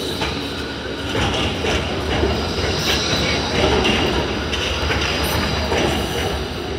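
E2-class tram rolling past and taking a curve, its steel wheels squealing with a faint high steady tone and clicking over the track joints.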